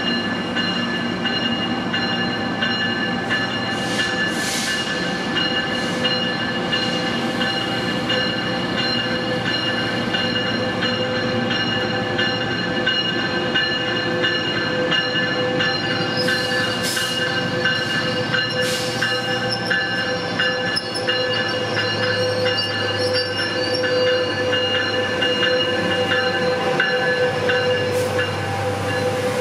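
Metrolink passenger train rolling slowly into the station alongside the platform, with a steady whine, wheel squeal and a few brief hisses. Near the end the EMD F125 diesel locomotive in the middle of the train passes close, adding a deeper rumble.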